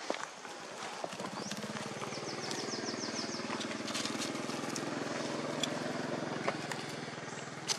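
A small engine running steadily, starting about a second in and holding an even low hum. A quick run of high chirps comes around two to three seconds in, with scattered light clicks and rustles.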